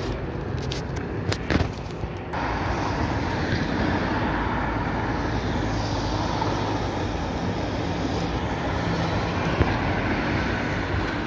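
City street traffic: cars, buses and a trolleybus passing, with steady tyre and engine noise. A few sharp clicks and a brief louder knock come in the first couple of seconds, before the sound changes abruptly.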